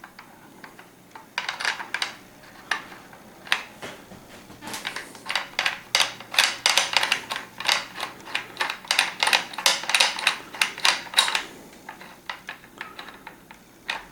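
Metal breech plug wrench clicking and clinking against the barrel of a CVA Eclipse inline muzzleloader as the breech plug is turned out. A few scattered clicks at first, then a dense run of quick clicks from about five seconds in that thins out a few seconds before the end.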